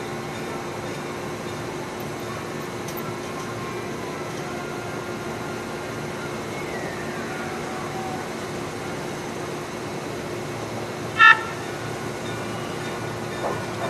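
Train-wash plant's rotating brushes running against an electric commuter train as it creeps through, a steady mechanical whirr with a constant hum. A falling whine is heard about halfway, and a single short, loud horn toot sounds near the end.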